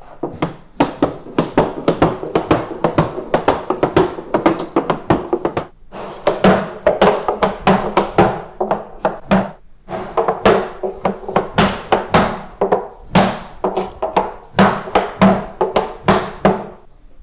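Cooper's hammer striking a hoop driver to drive the metal hoops down a wooden cask, in steady hard blows about three a second, with two brief pauses as he works around it. Each blow leaves a short ringing tone from the cask.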